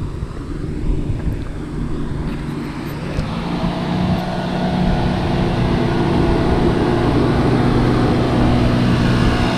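Chevrolet Silverado pickup's engine running as the truck pulls up and idles, its steady hum growing clearer and a little louder about a third of the way in.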